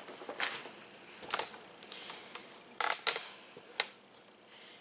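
Handling noise: a handful of irregular light taps and knocks as a cardboard package is set down and the camera is moved, with the loudest cluster about three seconds in.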